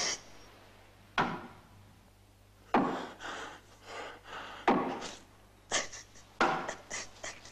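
Five lashes of a whip on a man's bare back, coming irregularly about a second apart, with his strained, panting breath after the strikes.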